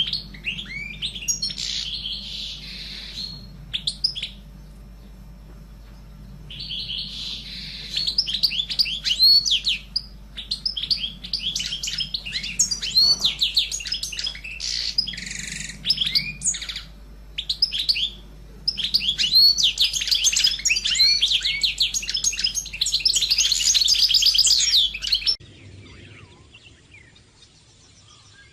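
Pet canary singing in bursts of rapid chirps and trills with short pauses between them. It falls silent about three seconds before the end.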